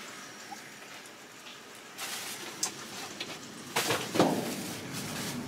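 Plastic bags and trash crinkling and rustling as they are moved about in a dumpster, setting in about two seconds in, with a few louder crackles near the end.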